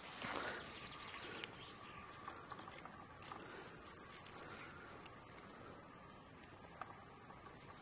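Rustling and crackling of grass and handling noise as someone searches the grass beside a railway track, louder in the first second or so, with a few scattered small clicks a few seconds in.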